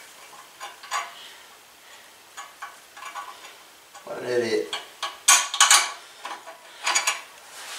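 Metal hand tools clinking and scraping against the engine of a Husqvarna riding mower as bolts are worked on, with a quick cluster of clinks about five seconds in. A man's short falling groan comes about four seconds in.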